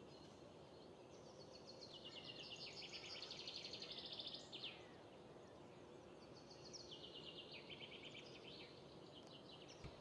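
A songbird singing faintly: two phrases of fast trills, each stepping down in pitch.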